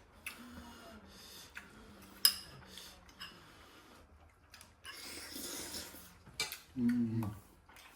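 Utensils clinking and scraping against bowls and a hotpot pot, with one sharp clink a little over two seconds in. A brief voice sound comes near the end.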